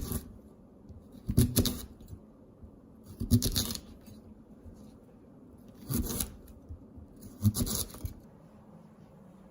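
Five short scraping, rustling handling noises during food preparation, one every second or two, with quiet between.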